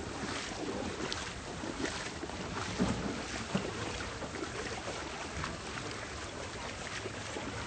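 Steady noisy wash of flowing floodwater and wind, with a few brief knocks.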